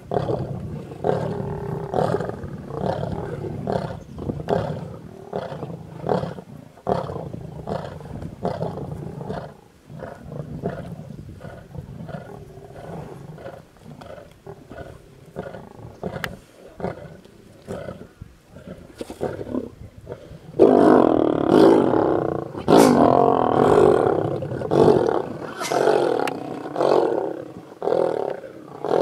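A pride of lions growling as they feed together on a buffalo carcass. The growls come in short bursts and grow much louder and more frequent about two-thirds of the way through, roughly one a second.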